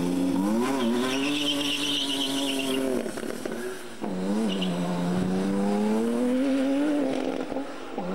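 Mid-engined sports car launching off a drag strip start line and accelerating hard, its engine rising in pitch, dropping at an upshift about three or four seconds in, then rising again until a second shift near the end. A high squeal, likely tyres, sounds during the first seconds of the launch.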